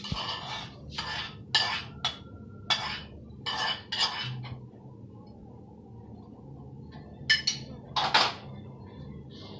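A spoon scraping and clinking against the inside of a pot as thick sauce is scraped out into a bowl, a quick run of strokes for about four seconds. After a pause come two louder clanks of the pot or utensil near the end.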